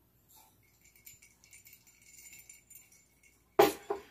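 Glass mug clinking lightly while someone drinks from it, then set down on a wooden table with a loud knock and a smaller second knock near the end.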